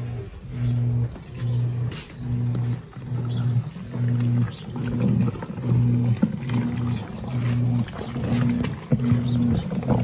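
Wanke Sally 5 kg semi-automatic washing machine agitating a load of cloths in soapy water. Its motor hum comes in even pulses about twice a second as the agitator swings back and forth, with water sloshing.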